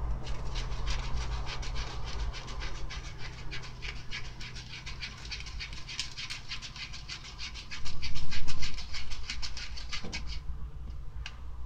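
Small plastic spoon stirring powder-and-water batter in a plastic tray cup, a quick scratchy scraping of several strokes a second that stops about ten seconds in. A louder low thumping comes around eight seconds in.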